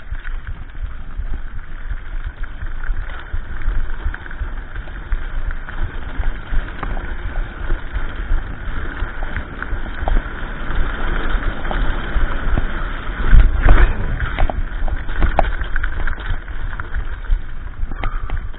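Mountain bike riding fast on a dirt trail: a steady rumble from the tyres on rough ground with scattered rattles from the bike and handlebar-mounted camera, and a harder jolt about thirteen seconds in.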